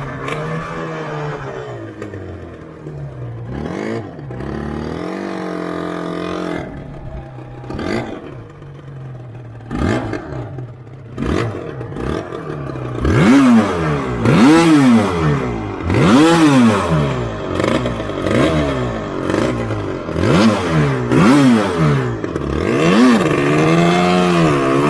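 Yamaha RZV500R's two-stroke V4 engine running, its pitch wavering at first, then revved up and down sharply about half a dozen times in quick succession in the second half.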